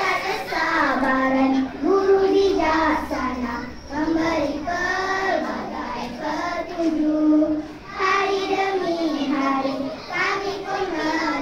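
A group of young children singing a song together in unison, in held notes that step up and down, phrase by phrase with short breaks between.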